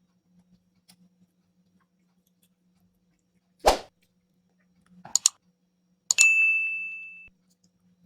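A dull thud, then two quick clicks, then a sharp knock on a hard object that rings with one clear high tone, fading over about a second.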